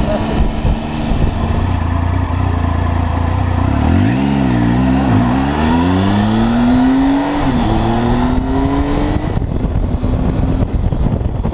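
Triumph three-cylinder motorcycle engine under way: a steady note that dips about four seconds in, then rises as the bike accelerates, drops at a gear change about halfway through and rises again before settling back to a steady drone.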